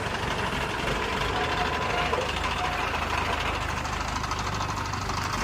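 An engine running steadily with a low, evenly pulsing rumble, with faint voices in the background.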